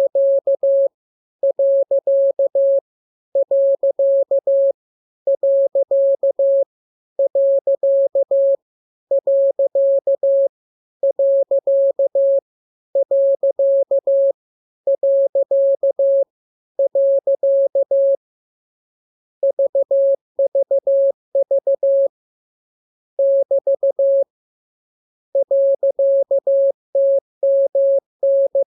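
Morse code (CW) sent as a single mid-pitched beep, keyed into dots and dashes. The characters come in groups about every two seconds with short pauses between them, and after a longer pause about two-thirds through the groups change pattern.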